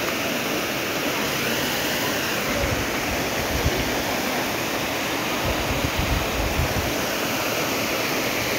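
Steady rushing noise of wind blowing across the phone's microphone, with low buffeting gusts about a third of the way in and again past the middle.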